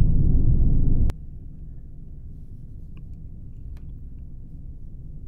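Loud, deep rumbling of strong wind buffeting a spacecraft, which cuts off abruptly with a click about a second in. After that only a faint low rumble remains, with a couple of small ticks.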